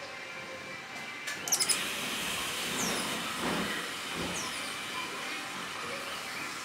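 Outdoor ambience of a garden with a steady hiss that swells a couple of seconds in. A quick run of sharp clicks comes about a second and a half in, and a few short high falling chirps, typical of small birds, come later.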